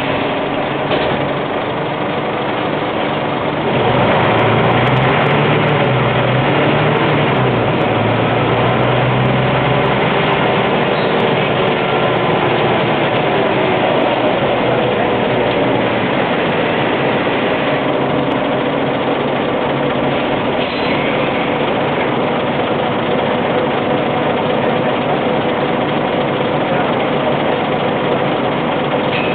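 Scania N94UB single-decker bus heard from inside the saloon: engine running with road noise as the bus drives. It grows louder about four seconds in, with a deeper engine note for several seconds.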